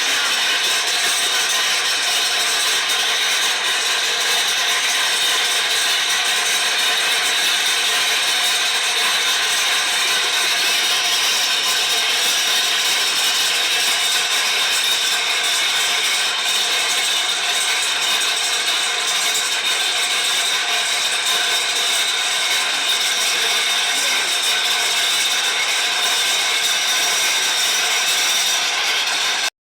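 Machinery running steadily, a constant mechanical whine and rattle with several fixed tones that cuts off suddenly at the very end.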